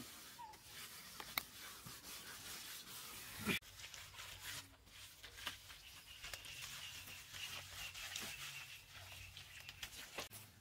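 Wet mud plaster mixed with straw, smeared and pressed by hand onto a wall and bamboo lattice: irregular wet rubbing and squelching with scattered clicks and one sharper slap about three and a half seconds in.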